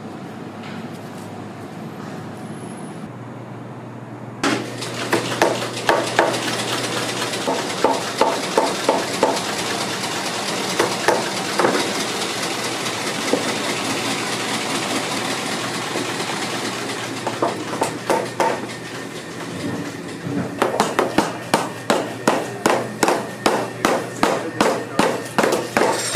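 A cobbler's hammer taps a freshly cemented rubber lug sole onto a boot, with sharp even strikes about two a second starting some 20 seconds in. These strikes set the sole into the cement. Before them, from about four seconds in, a steady rushing noise with scattered knocks fills the workshop.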